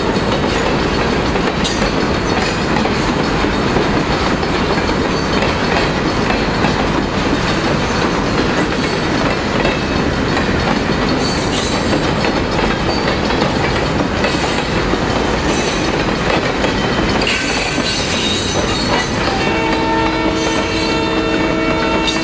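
Freight cars rolling slowly past over a road crossing, wheels clattering and rumbling steadily. Near the end, a locomotive horn starts sounding a steady multi-note chord.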